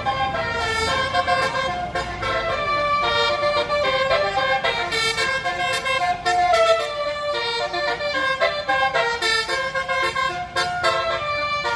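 Tour bus Basuri 'telolet' musical air horn playing a tune of quick stepped notes, several pitches sounding together and changing every fraction of a second.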